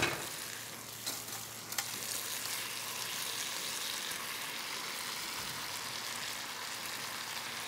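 Wild boar stir-fry with vegetables sizzling in a wok in a thick oyster-hoisin sauce glaze: a steady frying hiss, with a few light clicks in the first two seconds.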